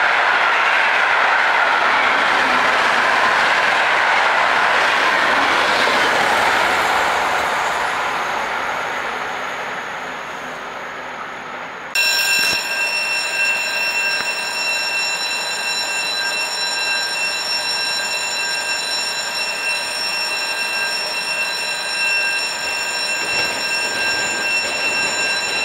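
Passenger coaches of a locomotive-hauled train rolling past at speed, a loud rushing noise that fades over about ten seconds as the train moves away. After an abrupt change, a steady high whine of several held tones as an electric commuter train approaches.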